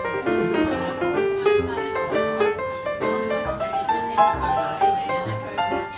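Background music: a light piano melody, one note after another, over lower notes.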